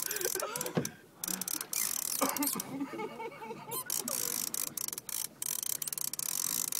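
Fishing reel ratcheting and clicking as line is worked against a fish on the line, with the rod bent under the load.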